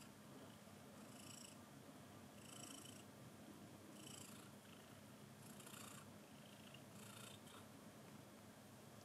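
Cat purring softly and steadily, swelling with each breath about every second and a half.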